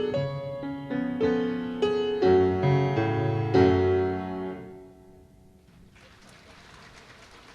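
Piano playing a run of chords that ends on a final chord dying away about five seconds in. A faint steady hiss follows.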